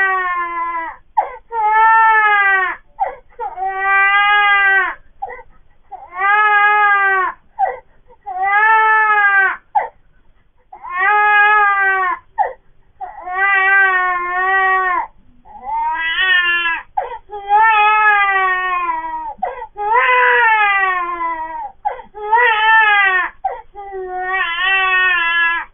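Newborn baby crying hard: about a dozen wails, each a second or so long and falling in pitch, with short breaths between them. The baby is crying after being startled by a sneeze.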